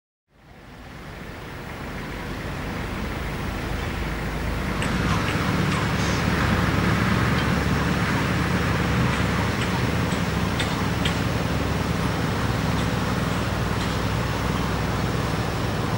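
Engine of a vintage AEC lorry running as the lorry drives slowly by. The sound rises over the first few seconds, then holds steady.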